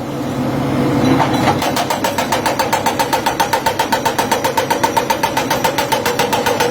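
Excavator running with a rapid, even pulse of about nine beats a second over a steady tone, the pulse setting in about a second and a half in.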